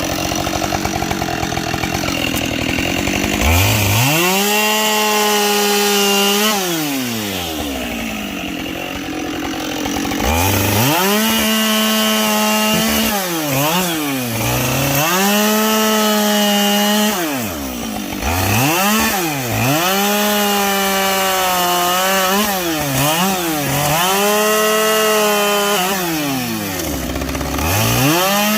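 Two-stroke chainsaw bucking logs: it runs low, then is throttled up to full speed about three and a half seconds in, and revs up and drops back several times, holding high between the drops.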